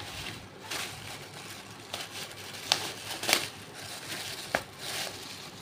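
Clear plastic shirt packaging crinkling and rustling as it is handled, with several sharper crackles, the loudest about three seconds in.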